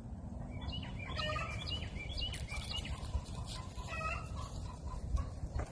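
Domestic chickens clucking: a run of short, repeated clucks over a low rumble.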